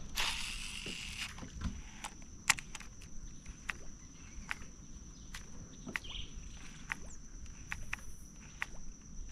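A steady high-pitched insect drone, with scattered sharp clicks and ticks throughout and a short hiss in the first second.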